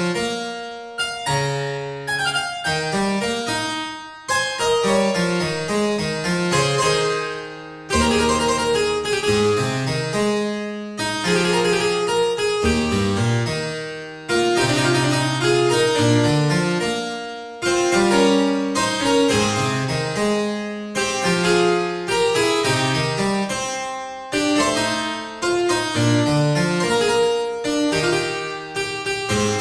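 Background keyboard music in a harpsichord style: quick runs of notes that start sharply and die away, in phrases that break off briefly every few seconds.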